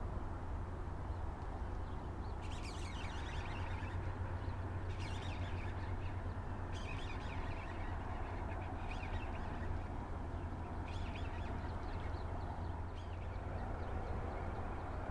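Gulls calling in short bursts of cries, repeated every couple of seconds, over a steady low rumble.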